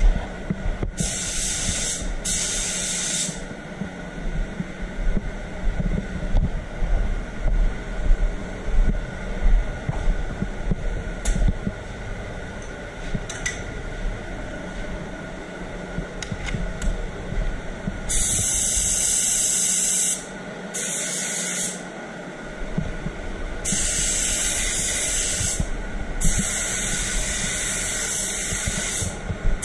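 Compressed-air paint spray gun hissing in separate bursts of one to three seconds as it lays white direct-gloss topcoat on a bumper, over the steady hum of the spray booth's extraction. There is one burst about a second in, a quieter stretch, then four bursts close together in the last twelve seconds.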